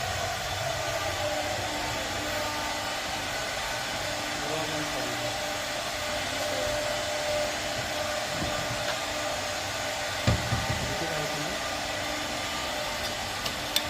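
Steady whirring motor noise, with a few low knocks about ten seconds in.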